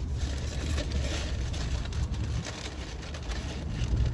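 Steady low rumble of a car's cabin while driving, with faint crackling noise over it.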